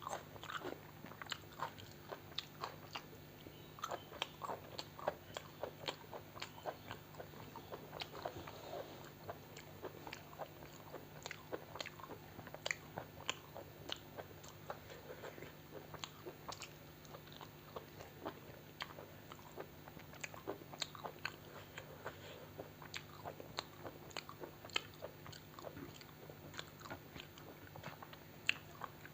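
A person chewing and biting a meal of chicken gizzard, chicken liver, rice and salad close to the microphone. Irregular wet mouth clicks and crunches follow each other a few times a second.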